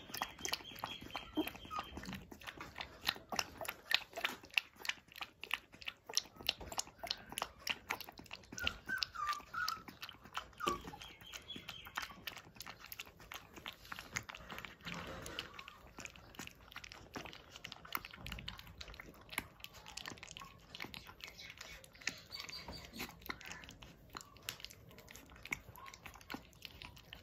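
A puppy lapping milk from a steel bowl: a long, uneven run of small, quick wet clicks, several a second.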